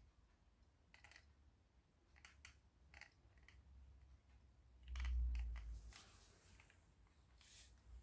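Faint handling noises: scattered small clicks, with a low bump about five seconds in that lasts about a second.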